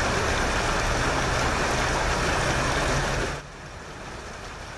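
Water from a burst 8-inch cast-iron water main gushing up through the street pavement, a loud steady rush. A little over three seconds in it drops to a quieter rush of flowing water.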